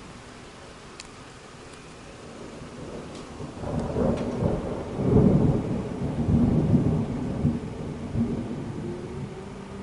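A long roll of thunder over steady rain. It builds about three and a half seconds in, is loudest around five seconds in, rolls on in several surges and fades away near the end.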